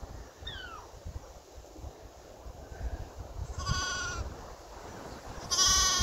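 Lambs bleating: two high-pitched bleats, one about three and a half seconds in and a louder one near the end, over a low wind rumble.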